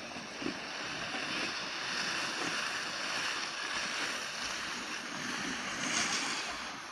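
Skis sliding over packed snow: a steady scraping hiss that swells a little in the middle.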